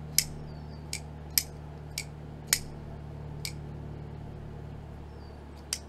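WE Knife Co. Mini Malice button-lock folding knife being flicked open and shut again and again. The blade snaps into place with a sharp metallic click a few times, about a second apart, with quieter clicks between.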